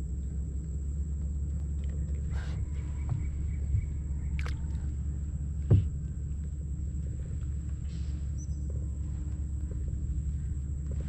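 Steady low rumble, with a few light knocks and a sharper knock a little before the middle.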